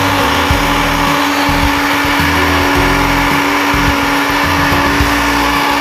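Countertop blender running steadily at full speed with a constant hum, puréeing a jar of liquid green herb sauce.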